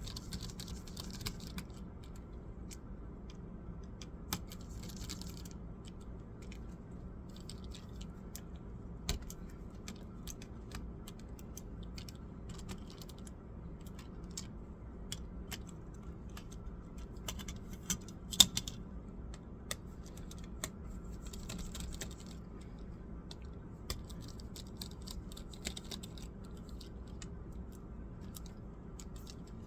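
Small plastic and metal parts of a laptop being handled during disassembly: scattered light clicks and taps with short spells of scratching, and one sharper click about halfway through, over a steady low hum.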